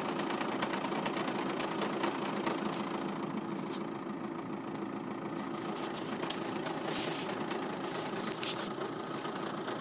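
Škoda Octavia 2.0 TDI PD (BKD) four-cylinder pumpe-düse diesel idling warm with the clutch released, making a strange sound that the owner's tags link to the clutch and dual-mass flywheel. A few short, sharp ticks sound in the second half.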